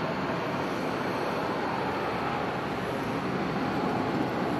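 Jet engine noise from a Boeing 777-200's twin turbofans at takeoff thrust, heard from the ground as the airliner climbs out: a steady, even rumble.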